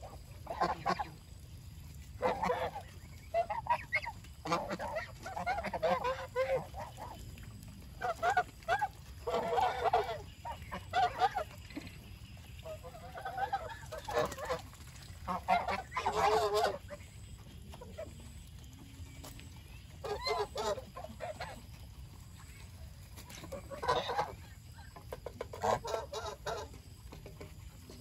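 Domestic geese honking repeatedly, the calls coming in irregular clusters every second or two with short pauses between them.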